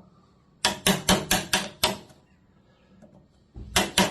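A wood chisel being struck with quick, even blows, about five a second, in two runs with a pause between, chopping waste out of a marked timber joint.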